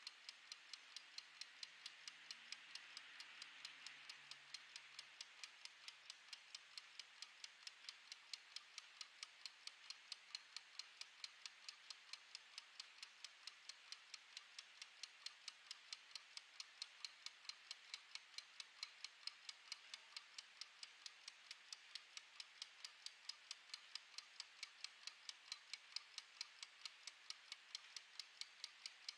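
Mechanical wind-up kitchen timer's clockwork ticking at a steady, rapid, even rate as it counts down.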